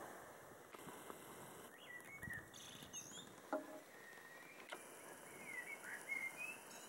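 Faint bird calls: a few short chirps and quick whistled glides in two small clusters, over a soft steady patter and hiss of falling sleet.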